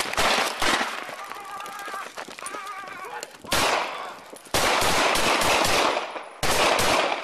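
Rapid gunfire, many shots in quick succession, mixed with shouting. There are several loud, harsh stretches of noise in the second half.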